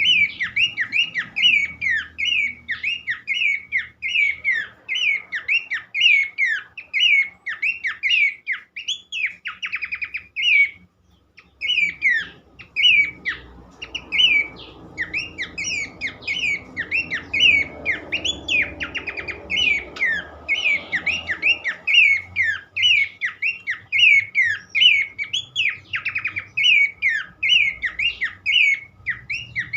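Horsfield's babbler (pelanduk semak) singing a fast, unbroken run of sharp whistled notes, about three a second, with a brief pause about eleven seconds in.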